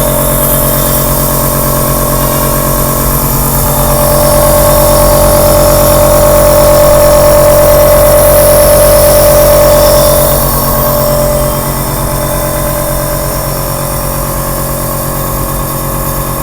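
Electric compressor nebulizer running with a steady motor hum and buzz. It grows louder about four seconds in and eases back about ten seconds in. The owner judges it no quieter than other nebulizers, despite its low-noise claim.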